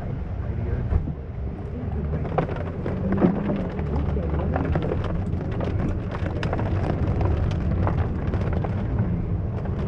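Heavy rain, many drops ticking sharply close by and growing thicker about two seconds in, over a steady low rumble.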